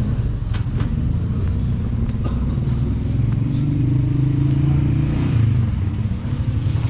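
Motorcycle engine running close by, its pitch rising gently to a peak about five seconds in and then easing off.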